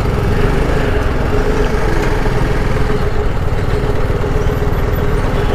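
Motorcycle engine running at a steady pitch while riding, over a constant rushing noise.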